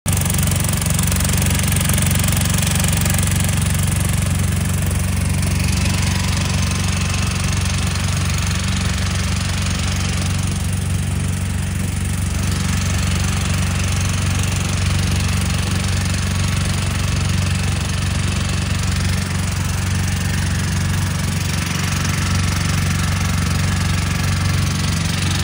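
Small wooden passenger boat's motor running steadily while underway, a low, even engine drone with a steady hiss over it.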